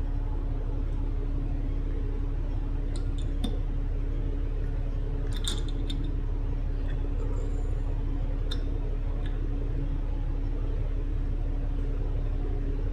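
Inside a moving Kowloon Motor Bus: the engine keeps up a steady low rumble with a constant hum. A few light rattles and clicks from the cabin fittings come in around the middle.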